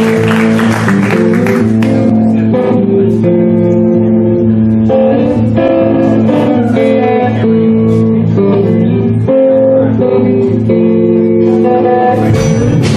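Live rock band: electric guitar picks out a sustained chord pattern over bass guitar at the start of a song, after a noisy wash in the first two seconds. Drums come in just before the end.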